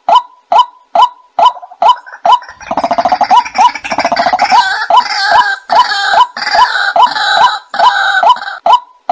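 White-breasted waterhen calling: a run of short repeated croaking notes, about two a second, that breaks into a louder, denser gurgling chatter about two and a half seconds in, with the single notes returning near the end.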